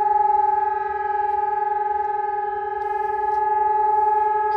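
Civil defence sirens, an electronic SiRcom ESp 750 Maestro and a DS 977 motor siren, sounding the steady test tone: one unchanging pitch with its overtones, slowly fading and swelling again in loudness.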